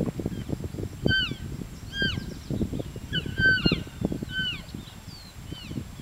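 Elk cows and calves mewing and chirping: short, high, squeaky calls that fall in pitch, coming roughly once a second and sometimes in quick pairs. Splashing water comes from the elk wading in the shallows.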